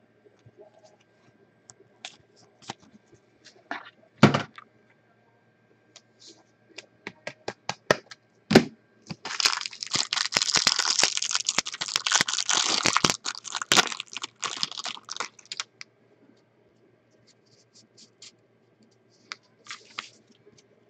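Trading-card packaging being handled and opened: scattered clicks and two sharp knocks, then about six seconds of dense crinkling and tearing in the middle, as a pack wrapper is torn open.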